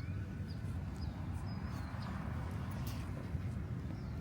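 Outdoor ambience: a steady low rumble, with short high bird chirps repeating about every half second.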